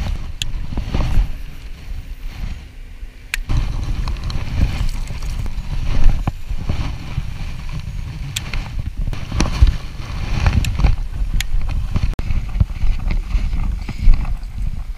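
Wind buffeting a camera in a waterproof case, a constant low rumble, with scattered sharp clicks and knocks from handling the camera and a baitcasting rod and reel.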